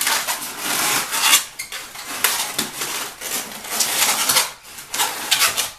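Latex modelling balloon squeaking and rubbing as it is folded and twisted into another flower petal, in several long stretches with a short break about four and a half seconds in.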